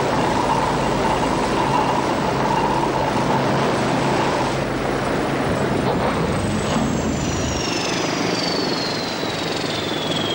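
Westland Wasp helicopter's turboshaft engine and rotors running. About six seconds in, a high whine starts falling steadily in pitch as the engine winds down.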